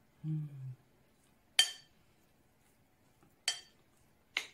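A metal teaspoon clinks against a plate three times as pudding is scooped and eaten, each clink sharp with a brief ring; the first, about a second and a half in, is the loudest. A short low hummed "mm" comes just before it.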